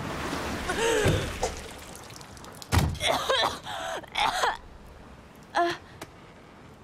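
A heavy thud about three seconds in, as of a body landing on a wooden deck, then a soaked girl spluttering and spitting out water in several short sounds, with one more short sound near the end.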